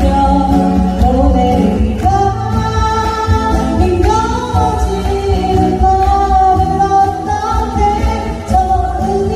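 A woman singing a Korean pop ballad, accompanied by two acoustic guitars.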